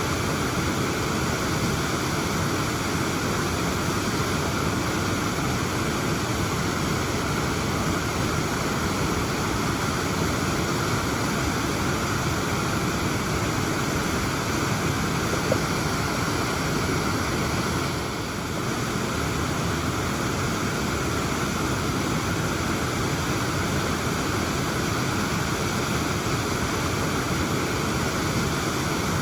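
Waterfall pouring, a steady, even noise with no change in pitch.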